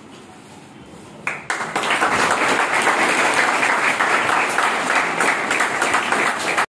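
A small group of people clapping, starting about a second in and stopping abruptly near the end; before it, only faint room tone.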